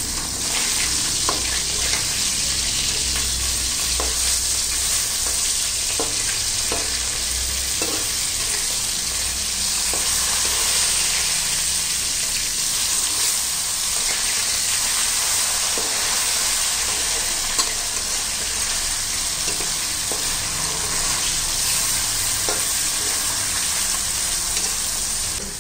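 Fish pieces sizzling steadily in hot oil in a kadai. A steel spatula gives a few sharp scrapes and taps against the pan as the pieces are turned over.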